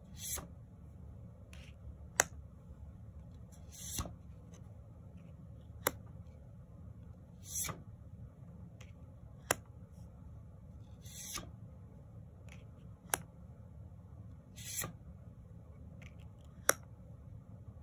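Tarot cards being flipped one at a time off the top of a deck. Each card gives a soft sliding swish and, a moment later, a sharp click, about every three and a half seconds, over a low steady hum.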